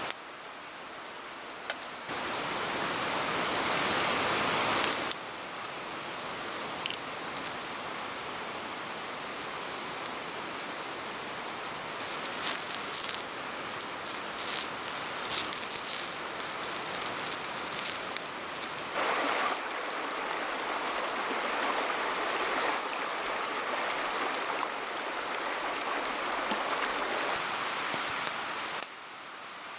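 Steady rush of running water, with a spell of sharp crackling from about twelve to eighteen seconds in; the level jumps abruptly a few times.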